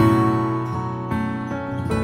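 Instrumental passage of a slow ballad on acoustic guitar and piano, with no singing. A chord is struck at the start and rings on, with new notes about a second in and again near the end.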